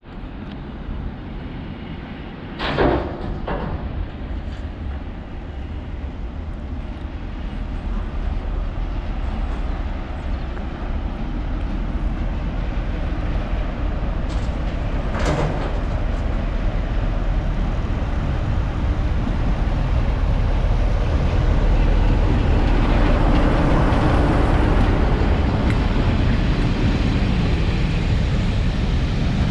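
A Class 47 and a Class 37 diesel-electric locomotive hauling a train along a station platform. The low diesel rumble grows steadily louder as it nears, giving way to the rumble and clatter of coach wheels on the rails close by. Two brief sharp sounds stand out, the louder about three seconds in and another about halfway through.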